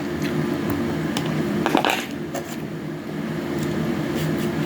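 Hands peeling and handling a honey orange: scattered crackles, squishes and small clicks, a louder cluster about two seconds in, over a steady low hum.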